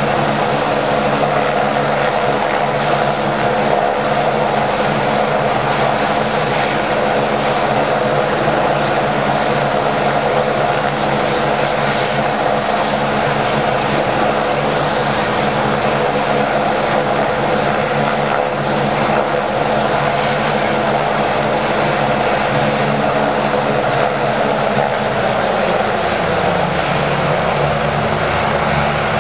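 Eurocopter EC145 helicopter running on the ground, its twin turbine engines and rotor making a loud, steady whine and rush. The low hum shifts slightly near the end.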